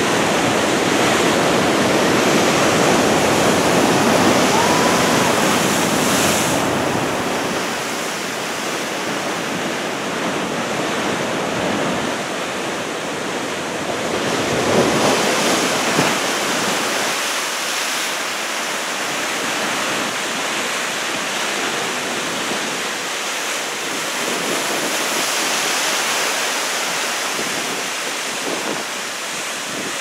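Heavy storm surf from a typhoon swell, breaking and washing in as a continuous rush of noise that swells and eases, loudest near the start, with wind on the microphone.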